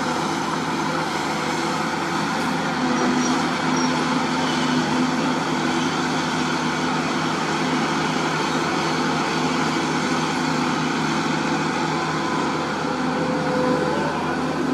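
Sunward SWE210 hydraulic excavator's diesel engine running steadily under load as the machine digs and scoops soil.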